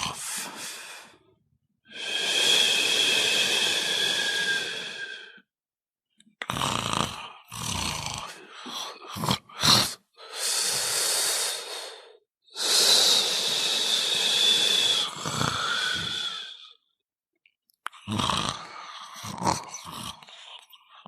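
A person snoring: long drawn breaths of a few seconds each, with a steady whistling tone in them, between stretches of short, choppy breaths.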